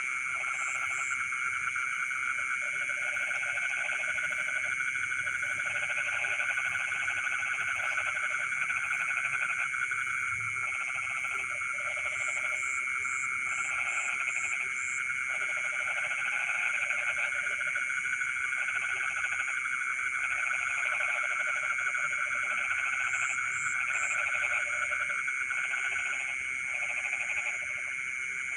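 Frogs calling at night in a dense chorus: a continuous high trilling drone, with a lower croaking call that repeats in runs of about a second separated by short pauses.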